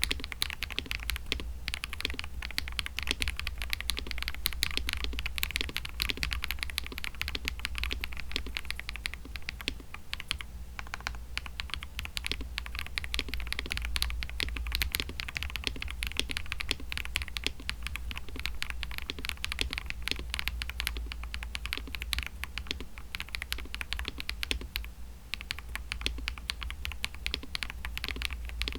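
Fast, continuous typing on a KBD67 Lite mechanical keyboard fitted with Akko CS linear or tactile switches, keystrokes clacking. The typing thins briefly about ten seconds in and again near 25 seconds. A steady low hum sits underneath.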